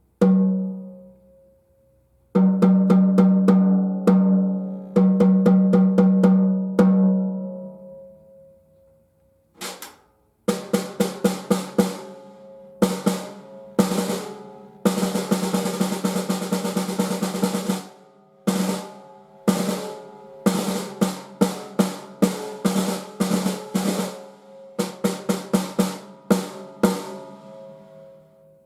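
TAMA Club-JAM kit's 13"x5" snare drum played on its own, each stroke ringing with a clear pitched tone. A single hit rings out first, then evenly spaced hits, then faster strokes and a roll in the middle before more groups of strokes with short pauses.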